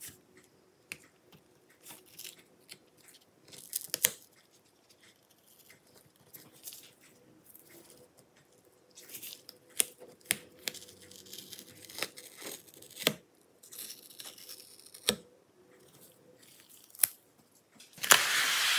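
Adhesive metallized film cover being peeled off a laptop's memory bay: scattered clicks and short crackling, tearing sounds as the sticky sheet lifts, with a louder rush of noise near the end.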